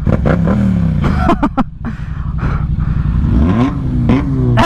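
Motorcycle engine note falling as the throttle eases off, then climbing again about three seconds in, over steady wind rush.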